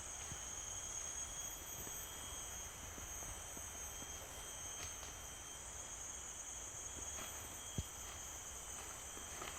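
Forest insects droning steadily, several constant high-pitched tones layered over one another. A single sharp click sounds about eight seconds in.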